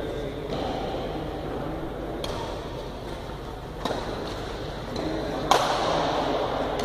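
Badminton rackets striking a shuttlecock in a doubles rally: three sharp hits about a second and a half apart, the last one loudest and ringing on in the hall, over a steady background murmur.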